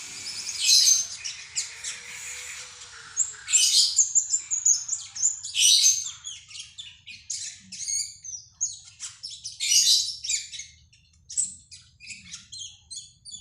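A cak keling songbird singing loudly, a fast, varied stream of high chirps, whistles and harsh squawking notes that stops near the end.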